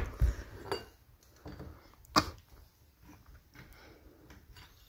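A few sharp clicks and knocks of hands handling a STIHL chainsaw's housing and caps while checking it for fuel; the sharpest click comes about two seconds in. The engine is not running.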